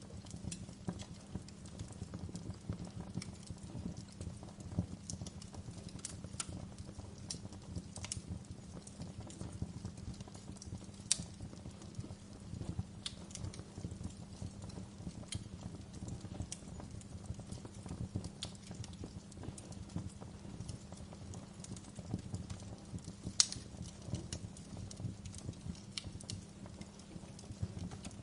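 Wood fire burning in a fireplace: a steady low rumble of flames with irregular crackles and sharp pops, two of them louder, about 11 and 23 seconds in.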